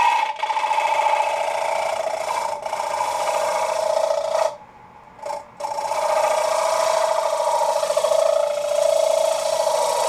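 A turning gouge cutting the inside of a spinning alder plate on a wood lathe, making a steady rasping shaving sound. The cut breaks off briefly twice in the first few seconds, then stops for about a second near the middle as the tool comes off the wood, and resumes.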